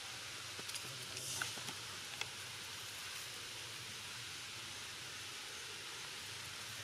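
Steady outdoor background hiss, with a few faint clicks and a short soft rustle in the first two seconds.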